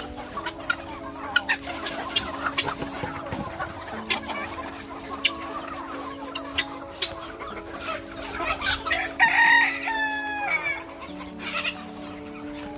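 Free-range country chickens clucking with many short calls, and a rooster crowing loudly about nine seconds in, its call falling away at the end.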